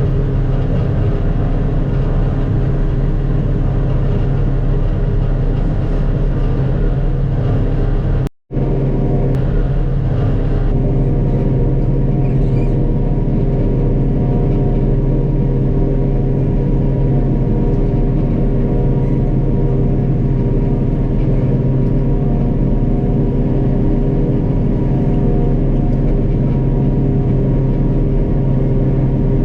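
Heavy diesel farm machinery engine running steadily under load, a constant deep drone, broken once by a short gap about eight seconds in.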